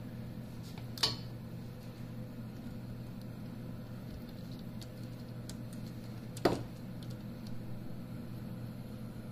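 Two sharp clicks of small parts or tools being handled during disassembly of the laser machine, about a second in and again past the midpoint, over a steady low hum.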